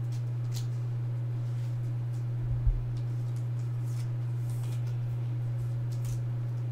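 Steady low hum, with faint rustles and ticks of a trading card being handled and slid into a clear plastic sleeve. A soft thump comes about two and a half seconds in.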